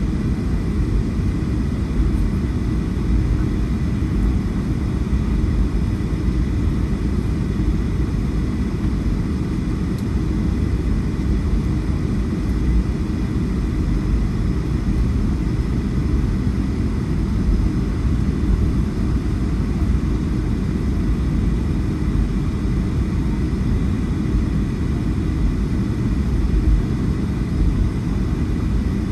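Steady low rumble of a Boeing 757-300 with its Rolls-Royce RB211 engines at low, even thrust, as while taxiing, with a faint steady whine above it.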